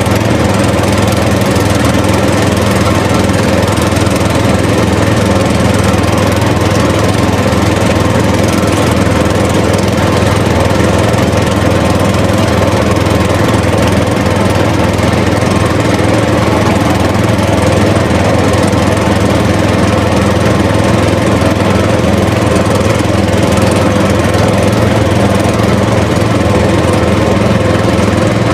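An engine running steadily at one unchanging speed, with a low droning hum.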